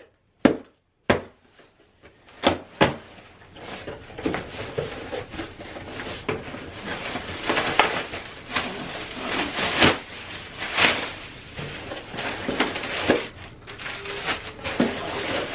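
Handling and opening an Amazon package: a few sharp knocks and taps at first, then a long stretch of continuous crinkling and rustling of packaging, swelling louder now and then.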